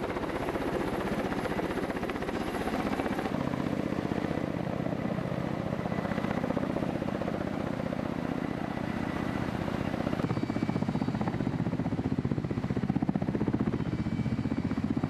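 Kamov Ka-52 attack helicopter's coaxial rotors and turboshaft engines running in flight: a loud, steady, rapidly pulsing rotor chop that changes abruptly twice, about three seconds in and again about ten seconds in.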